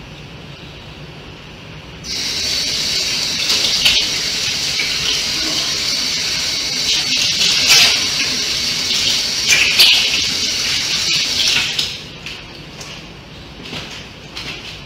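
Kitchen tap turned on and left running for about ten seconds, a steady rush of water that starts and stops abruptly, with a few knocks while it runs.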